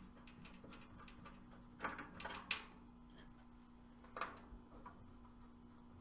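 A few small clicks and knocks, the sharpest about two and a half seconds in, as brass valve core removal tools are handled on an air conditioner's service ports to put the Schrader valve cores back in. A faint steady low hum runs underneath.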